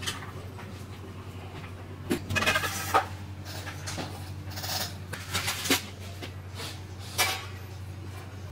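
Clattering knocks and rattles of a large round stainless-steel tray being picked up and set down on the wire grille of an electric heater, in bursts about two seconds in, around five seconds and once near seven seconds, over a steady low hum.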